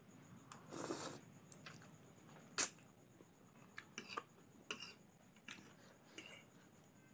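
Metal fork clicking and scraping against a plate while stirring and lifting saucy instant noodles: a scattering of short clicks and soft wet swishes, with one sharper clink about two and a half seconds in.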